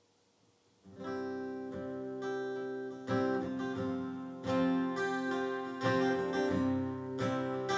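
Acoustic guitar starting a song's instrumental intro about a second in, strumming chords with a stronger strum about every second and a half.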